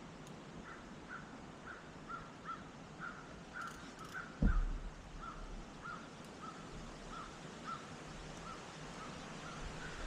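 A bird calling over and over in a long run of short, evenly spaced calls, about two a second, with a single low thump about four and a half seconds in.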